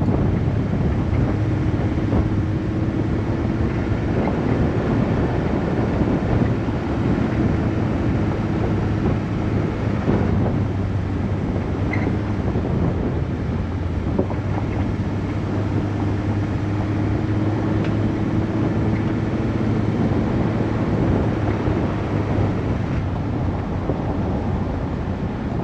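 A vehicle driving along a dirt forest road: a steady low engine hum, its pitch creeping up gently twice, over continuous road and tyre noise.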